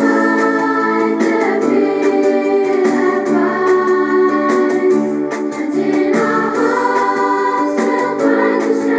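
A song playing: voices singing a melody over a sustained instrumental backing.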